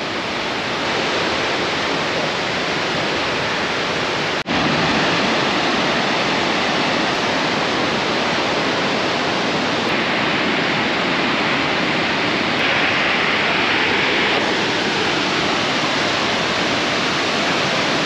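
Steady rush of the Velo de Novia waterfall, running with heavy rainy-season flow. The sound drops out for an instant about four and a half seconds in and comes back a little louder.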